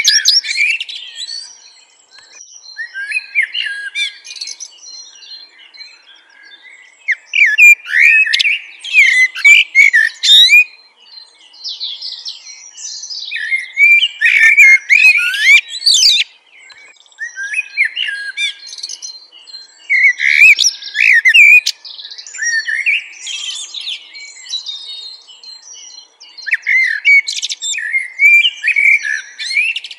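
A songbird singing: bouts of fast chirps and trills a second to a few seconds long, separated by short pauses.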